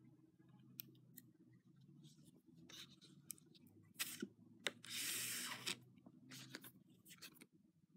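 Two-ply linen thread being drawn through stitch holes in thin kangaroo-hide leather, with a rasping swish of nearly a second about five seconds in as the stitch is pulled, and lighter rubs and small clicks of fingers handling the thread and leather around it.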